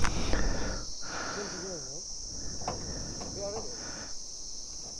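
Steady high-pitched drone of insects in the forest, with faint distant voices calling out twice in the middle.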